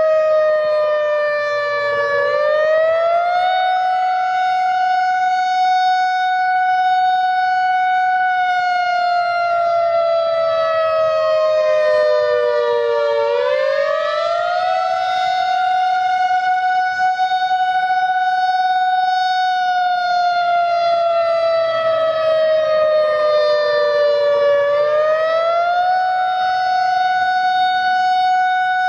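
Outdoor civil defense warning sirens, an ASC I-Force and a Federal Signal 2001-SRN, sounding the attack signal: a wavering wail that holds high, sinks slowly and climbs quickly back, about every eleven seconds.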